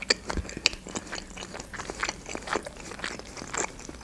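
Close-miked chewing of a mouthful of gyurza, an Azerbaijani meat dumpling: rapid, irregular wet mouth clicks and smacks, several a second.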